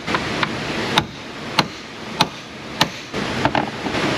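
Sharp metal knocks, six or so at an even pace of about one every 0.6 seconds, as a bolt-extractor socket is worked onto a rusted battery hold-down bolt.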